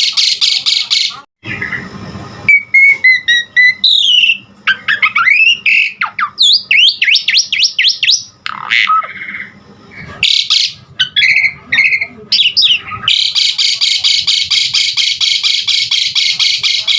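Asian pied starling (jalak suren) singing a loud, varied song: fast runs of rapid repeated chattering notes at the start and again from about two-thirds of the way through, with a jumble of rising and falling whistles and squeaky glides between them.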